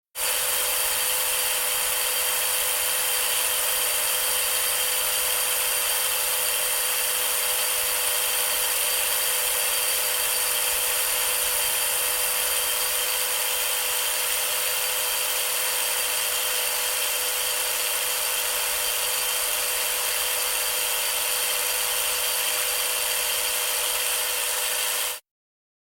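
Power drill running at a steady speed with a constant whine, then cutting off abruptly near the end.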